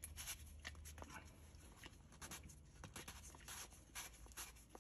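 Faint, irregular scratching and light clicks of plastic as a diesel fuel filter housing is spun together by hand.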